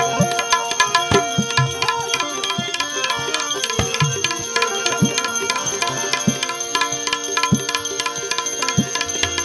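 Instrumental interlude of a Gujarati devotional bhajan: a harmonium melody over a steady tabla beat, with no singing.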